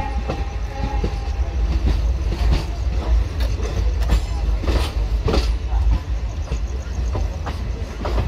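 Indian Railways express train running along the track, heard from the coach door: a steady low rumble with irregular clicks and knocks of the wheels over rail joints. A short steady tone sounds in the first second.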